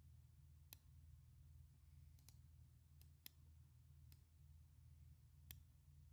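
Near silence: a faint low hum with about six sharp computer mouse clicks scattered through, two of them close together about three seconds in.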